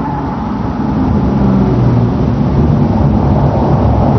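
Motor vehicle engines and road traffic, a steady low engine noise that grows a little louder after the first second.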